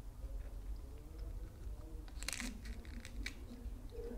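A crisp, crunchy bite tearing into a raw magnolia petal about two seconds in, followed by a few soft chewing clicks, over a low steady hum.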